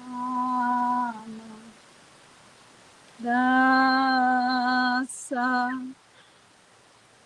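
A woman's voice holding long wordless notes on one steady pitch: a short note at the start, then a longer one from about three seconds in, broken briefly near the five-second mark.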